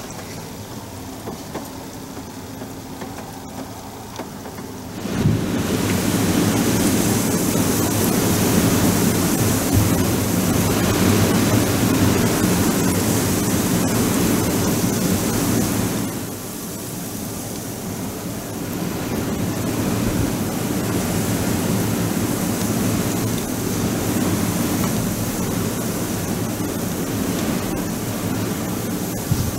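Steady rushing wind noise on the microphone. It jumps louder about five seconds in and eases somewhat after about sixteen seconds.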